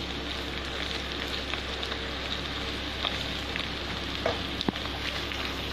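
Sliced mushrooms, bell pepper, onion and longganisa sausage sizzling steadily as they sauté in a frying pan, with a few light clicks.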